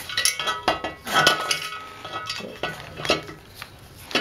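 Metal parts clinking and knocking with short ringing as the upper aluminium crankcase half of a Honda CL160 engine is fitted down over the studs, dowel pins and transmission gears of the lower half. A string of irregular clinks, the loudest about a second in.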